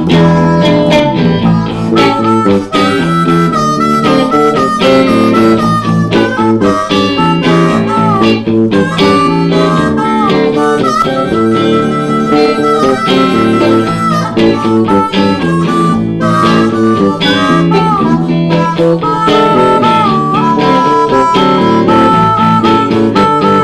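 Blues harmonica solo, played cupped together with a handheld microphone, with bent and wavering notes over a band's guitar and bass accompaniment.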